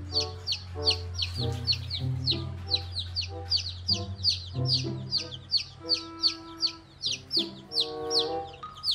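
Baby chicks peeping, a constant stream of short, high, falling chirps, several a second, over background music with held notes.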